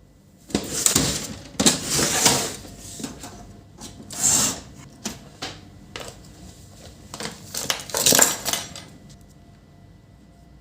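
Hard objects being handled: an irregular string of clatters, scrapes and clicks, loudest about a second in, around two seconds, four seconds and eight seconds in.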